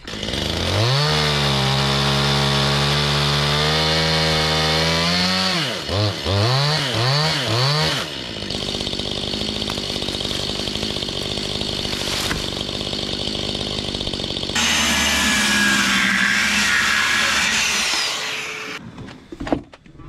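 Chainsaw revving up and running at high speed while clearing trees, with a few quick throttle blips about six seconds in. A louder, harsher stretch begins about fifteen seconds in and cuts off shortly before the end.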